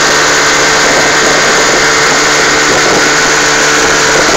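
Boat's outboard motor running steadily at speed, over a constant rush of water from the wake.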